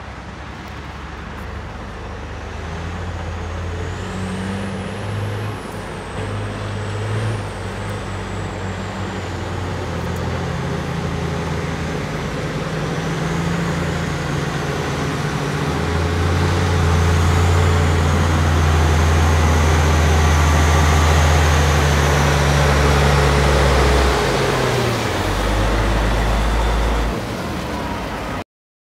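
Caterpillar 772 off-highway dump truck's diesel engine running as the truck drives up, growing louder as it comes close, its low note stepping to new pitches several times, with a high whine that rises and falls above it. It cuts off suddenly near the end.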